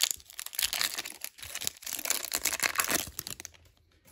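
Foil wrapper of a Topps 2023 Series 2 baseball card pack crinkling and crackling in the hands, in quick irregular bursts that die away near the end.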